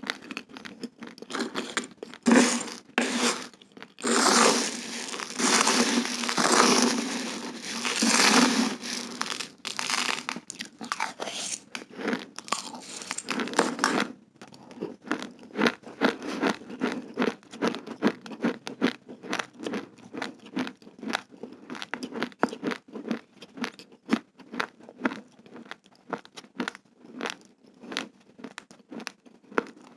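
Raw, uncooked rice grains being crunched and chewed close to the microphone: a dense run of sharp, crisp cracks. It is louder and thicker from about four to nine seconds in, then becomes quieter, finer crackling.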